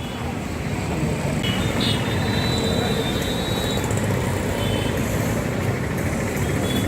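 Steady street traffic noise with a busy market din.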